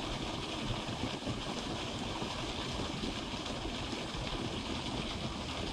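Steady rushing of river water pouring over a small spill, with an uneven low rumble beneath it.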